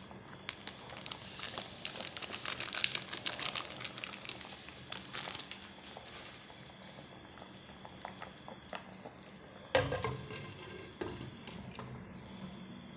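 Plastic seasoning packet crinkling and rustling in the hand for the first several seconds. About ten seconds in a pot lid is set down with a knock, followed by a smaller knock a second later.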